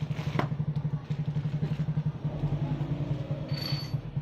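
A motorcycle engine idling nearby with a steady, rapid low putter, plus a sharp metallic click about half a second in and a brief metal ring near the end.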